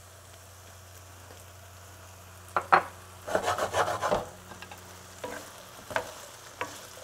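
Diced potatoes sizzling softly in oil in a metal frying pan, then, a little over two seconds in, a run of clattering and scraping as the pan is handled and the potatoes are stirred with a wooden spoon, with a few single knocks of the spoon against the pan near the end.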